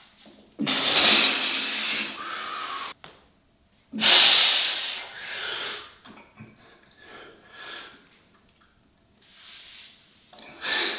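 A man blowing out two long, forceful breaths, one starting just under a second in and one about four seconds in, then breathing more quietly. He is letting the air out while holding a bodybuilding pose.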